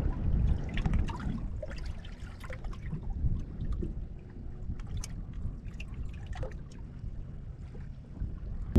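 Small waves lapping and trickling against the side of a drifting boat, with wind rumbling on the microphone.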